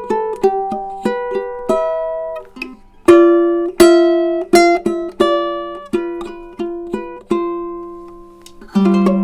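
Tenor ukulele with a koa body and redwood top, played unaccompanied: an improvised run of single plucked notes and chords, each ringing and fading. A lower, longer-held note enters near the end.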